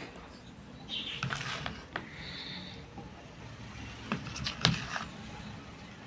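A few light clicks and knocks from handling kitchen utensils and ingredients, scattered through the stretch.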